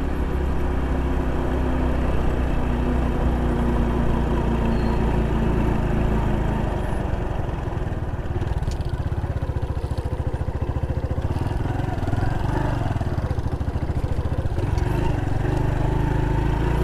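Honda Pop 110i's small single-cylinder engine running steadily while riding, with wind and road noise; its note shifts about seven seconds in.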